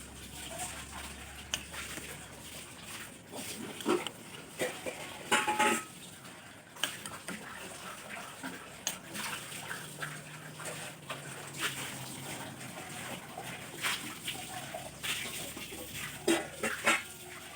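Food-preparation clatter: utensils and dishware knocking and clinking at irregular intervals, with a brief ringing clink about five seconds in and some splashing liquid.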